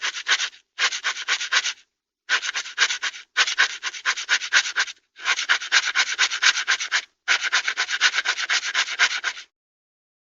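A dog's claws scratching fast, about seven strokes a second, in six bouts with short pauses between them, stopping shortly before the end.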